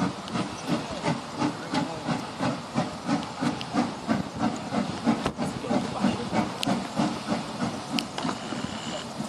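Steam locomotive working a passenger train, its exhaust chuffing in an even beat about three times a second over a steady hiss of steam. The beats grow softer near the end.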